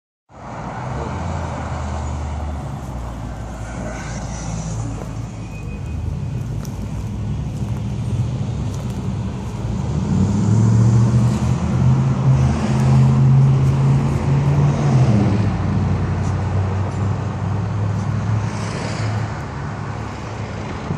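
Street traffic with vehicles driving past close by. A deep, steady engine drone from a vehicle is loudest from about ten to fifteen seconds in, then fades.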